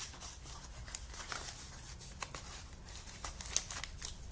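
Faint crinkling of small plastic bags of spare ear tips and scraping of a small cardboard box being handled, with scattered light clicks.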